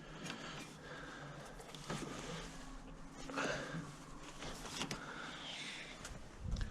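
Faint handling noises of rubber ignition leads being fitted to an engine's coil pack: soft rustles and a few small clicks.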